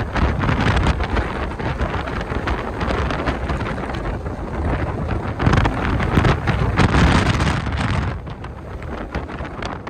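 Wind buffeting the microphone inside a car, a rough rushing noise that drops a little about eight seconds in.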